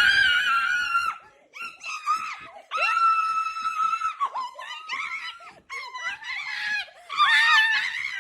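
A child squealing and screeching: a run of high-pitched, drawn-out cries with short breaks between them.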